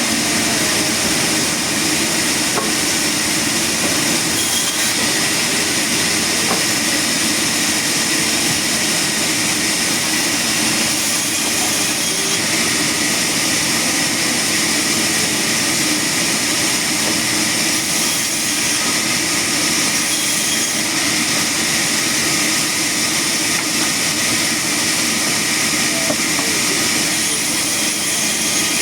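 Sawmill machinery running steadily and loudly, with a constant high hiss over a machine hum and no breaks.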